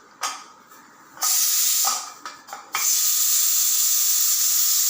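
Steam hissing from a pressure cooker's vent: a short burst about a second in, then a steady hiss from just under three seconds in.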